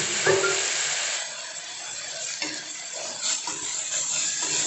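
Onion and tomato slices sizzling in hot oil in a pressure cooker pot while a slotted steel spatula stirs them, scraping and clicking against the pot. The sizzle is strong for about the first second, then settles lower under the stirring.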